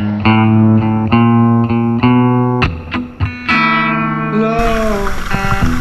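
Background blues music: a guitar plays a run of notes after the singing, with one bent note before the music stops about four and a half seconds in. A steady noise takes over at the end.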